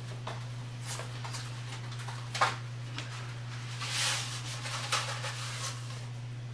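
Hands dredging raw chicken cutlets in breadcrumbs: soft crumbly rustles and pats, with one sharper knock about two and a half seconds in, over a steady low hum.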